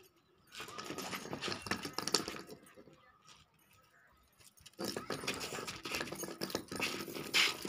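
Metal chain dog lead jangling and rattling as the dog jumps about on it, in two stretches of a couple of seconds each with a quiet gap between.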